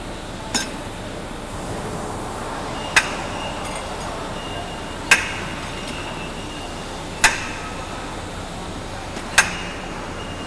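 Hammer knocking steel slitter blades and spacers on the shaft: five sharp metal-on-metal blows about two seconds apart, each with a brief ring, over a steady workshop hum.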